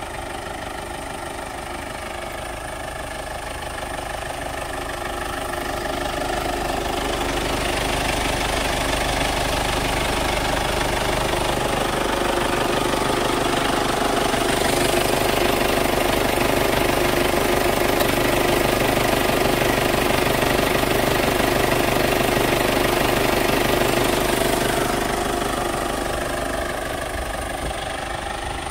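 Kia Sportage 2.0-litre turbo-diesel four-cylinder engine idling steadily with the hood open. It grows louder toward the middle, heard close over the open engine bay, and eases off near the end.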